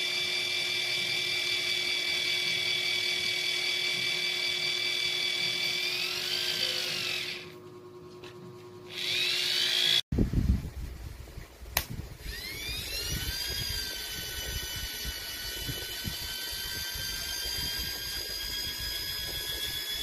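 Small electric motor of a mini turbo portable washing machine spinning its impeller: a steady high-pitched whine that winds down and stops about seven seconds in, then spins back up. After a click about twelve seconds in it rises again and settles into a steady whine.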